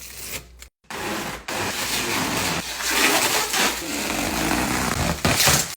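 A heavy refrigerator being pulled and shifted on the floor: a loud, rough scraping and rumbling that starts about a second in and varies in strength.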